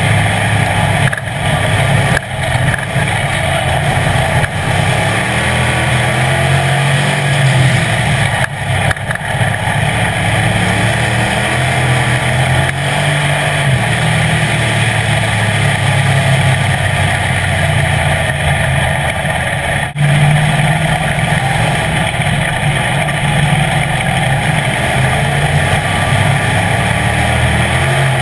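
Street stock race car's engine heard from inside the car, running hard at racing speed and rising and falling in pitch, with a few brief dips in level.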